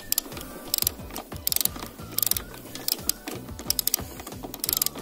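Socket ratchet wrench clicking as it is swung back and forth, a burst of rapid pawl clicks about every three-quarters of a second, unscrewing the front fender's upper mounting bolt beside the windscreen cowl.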